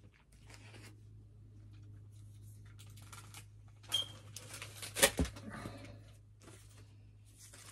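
Plastic-bagged comic books rustling as they are handled and swapped, with a sharp knock about five seconds in.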